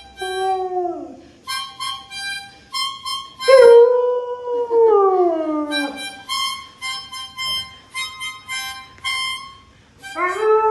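A dog howling along to a harmonica playing a march tune. Short bursts of harmonica notes alternate with long howls that hold and then slide down in pitch: one at the start, one about three and a half seconds in, and another starting near the end.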